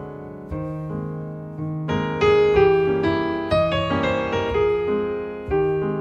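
Piano music: notes and chords struck roughly every half second, each ringing and fading before the next, fullest in the middle.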